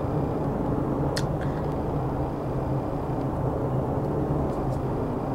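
Low-flying airplane overhead: a steady low rumble with a faint hum. There is one short click about a second in.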